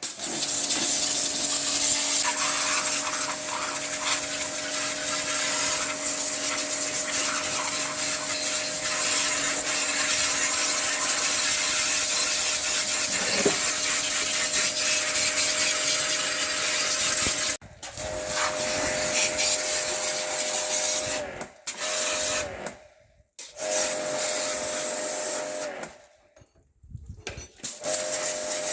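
A motor-driven machine running with a steady hum and a strong hiss. In the second half it stops and starts again several times.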